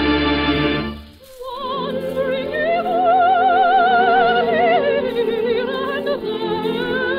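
Operetta choir and orchestra holding a full chord that breaks off about a second in. After a short pause the orchestra takes up a slow melody with strong vibrato.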